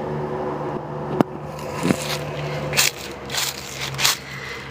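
Footsteps crunching on a wooded path, three or four crunchy steps in the second half, after a sharp click about a second in.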